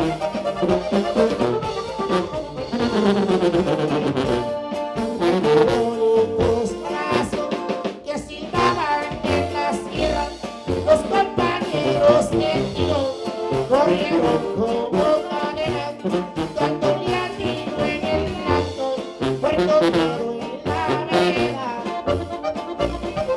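Live norteño music with sousaphone: a button accordion and a bajo sexto over a sousaphone bass line, playing steadily.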